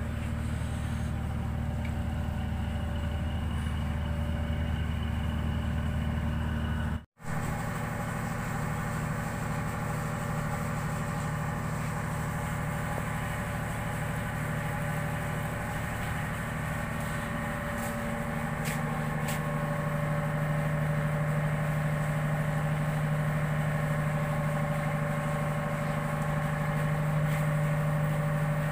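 Ship's engine running with a steady low hum. It cuts out for a split second about seven seconds in and comes back at a slightly different pitch.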